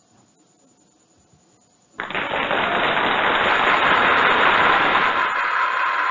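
A cartoon reward sound effect: a loud, steady rush of noise that starts suddenly about two seconds in and cuts off about four seconds later.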